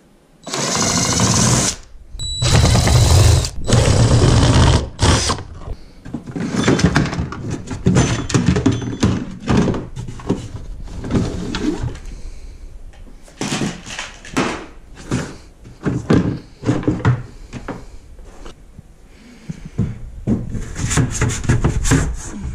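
A cordless drill-driver runs in three bursts of about a second each near the start, backing bolts out of a plastic kayak hull. Then comes a long run of clicks, knocks and rattles as the plastic seat and outfitting parts are worked loose and pulled out.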